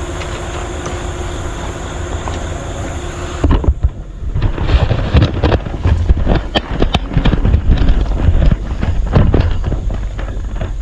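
Truck driving off-road: a steady engine hum at first, then from about three and a half seconds in, a run of irregular thumps and knocks as it jolts over rough ground.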